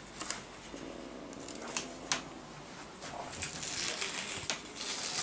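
Paper sticky notes rustling and crinkling as they are handled on a person's face, with several sharp clicks.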